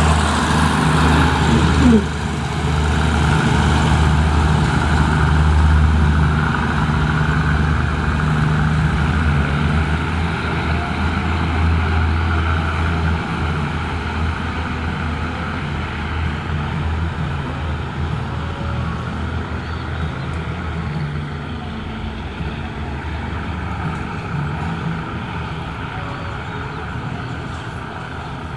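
Diesel railcar train running along the track with a steady low engine drone that slowly fades as it pulls away.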